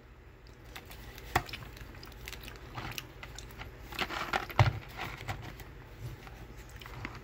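A cardboard candy box being handled, giving scattered faint taps and rustles, the loudest a cluster of knocks about four seconds in.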